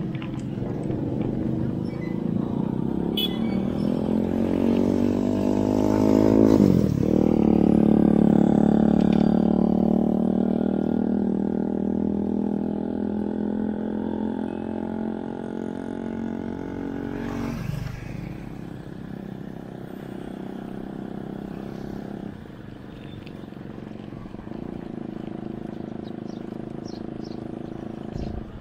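Vehicle engine pulling away: its pitch climbs steadily, then drops sharply at a gear change about seven seconds in. It pulls on at a steady pitch, with another gear change about eighteen seconds in, then cruises more quietly.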